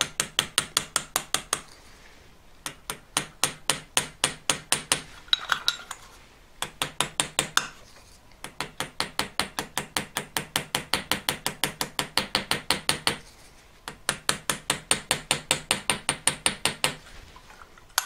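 Small hammer tapping lightly and rapidly on the end of a silver hinge pin, about four or five taps a second in runs with short pauses, riveting the pin ends over into small domes.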